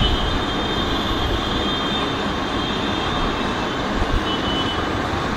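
City street traffic noise: a steady rumble and hiss, with a thin high whine through the first couple of seconds and again briefly near the end.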